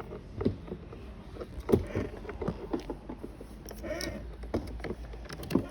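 Irregular handling clicks and knocks from plastic car parts and cable connectors being worked by hand, with a couple of sharper taps.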